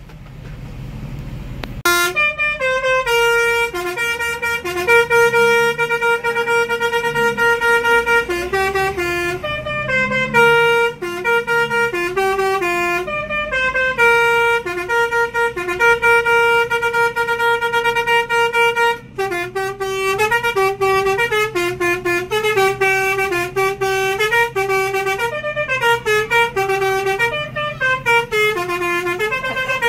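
Indonesian bus 'basuri' musical air horn playing a tune of held notes that step up and down, starting about two seconds in, with a brief break partway through.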